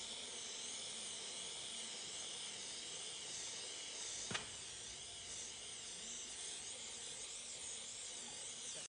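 Gas torch flame hissing steadily as it heats a tight bearing on a compressor gear shaft so the bearing can be pulled off. A single sharp click about four seconds in.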